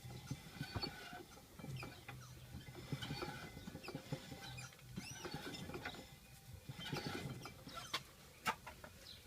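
Rear drivetrain of a VAZ 21063 turned by hand with the rear left wheel off: the propeller shaft gives repeated high squeaks while the rear left wheel hub scrapes and shuffles. These are the faults the owner is chasing: a squeaking propeller shaft and a scraping rear left wheel.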